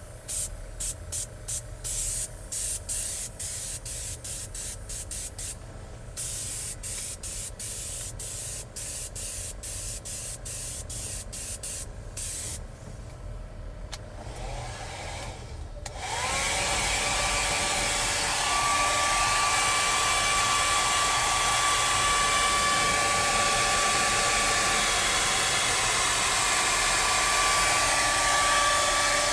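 Short, rapid hissing bursts of a spray gun misting leather dye onto a seat bolster, two to three a second. After a short pause, a hair dryer switches on about halfway through, whining up to speed and then blowing steadily and louder to dry the fresh dye coat.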